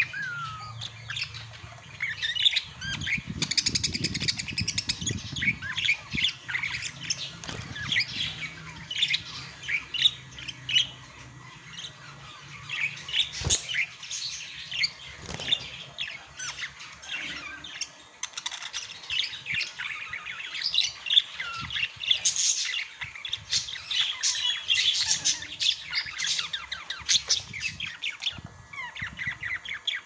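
Pet budgerigars chattering: a continuous stream of short, high chirps, with one sharp click about halfway through.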